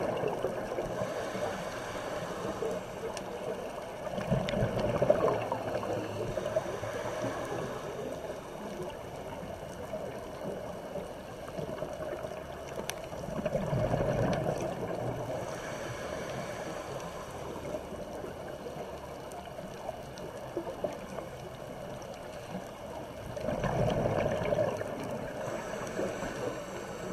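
Underwater sound of a scuba diver breathing through a regulator: exhaled bubbles rush out three times, about ten seconds apart, over a steady muffled hiss.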